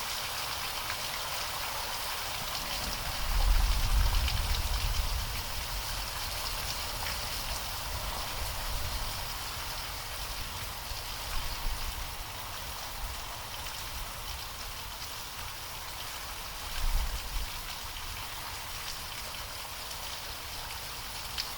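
Steady heavy rain with rolls of thunder: a deep rumble swells about three seconds in and dies away over a couple of seconds, and a shorter one comes near the end.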